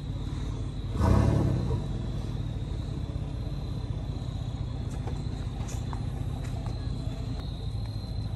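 Vehicle engines idling with a steady low hum, with a brief louder surge about a second in. Insects chirp steadily in the background.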